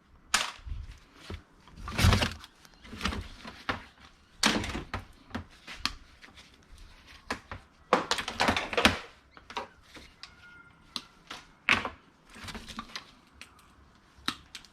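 Hard objects being handled and set down: an irregular string of knocks, clicks and clatters, several louder clunks about two, four and eight seconds in.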